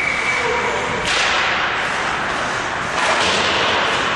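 Ice-hockey play in a rink: two sharp cracks of puck or stick on the boards, about a second in and near three seconds, each ringing on in the arena's long echo. A short steady high tone sounds at the very start.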